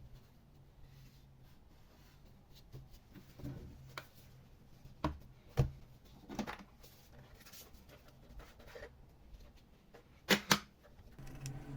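Scattered light clicks and taps of a laptop and small tools being handled, over a faint steady hum, with two sharp clicks in quick succession near the end.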